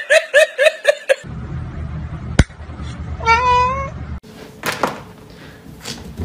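A person laughing in quick repeated bursts, which stop about a second in. Then a single sharp click and one short cat meow about three seconds in.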